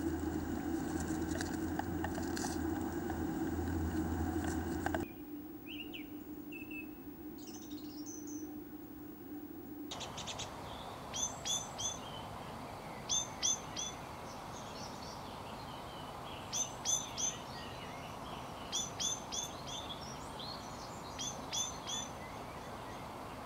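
A steady low hum from the nest-box camera's audio, then a small songbird calling at dawn. The calls come in short bursts of two or three high notes, repeated every two seconds or so, from about ten seconds in.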